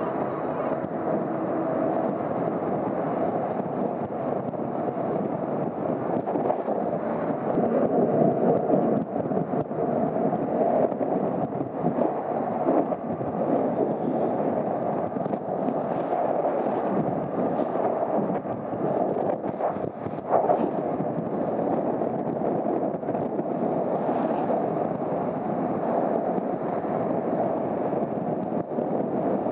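Steady rush of wind and road noise from a Honda CBR250R motorcycle riding at speed, with a short louder gust about twenty seconds in.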